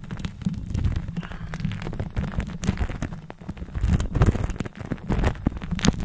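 Lipstick rubbed directly against the microphone: a continuous scratchy, crackling friction noise with a heavy low rumble and scattered sharp clicks.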